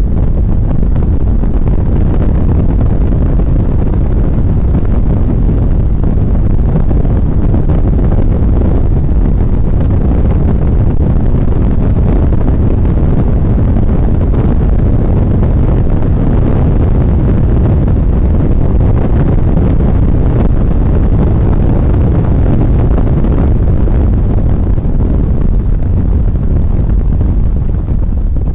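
Steady, loud rumble of an NSX driven at speed on track, heard inside the cabin: its mid-mounted V6 engine under load mixed with tyre and wind noise.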